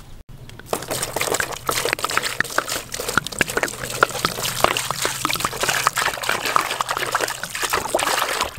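Water poured in a stream into a plastic basin, splashing over a coiled snake's body and into the water gathering at the bottom. The pouring starts about a second in.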